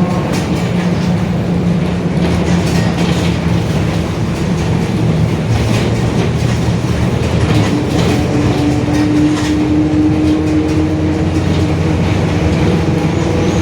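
Mercedes-Benz OF-1721 BlueTec 5 city bus under way, its six-cylinder diesel running under a steady rumble of road and body noise, with the differential growling. A clear humming tone comes in about halfway through and holds for a few seconds.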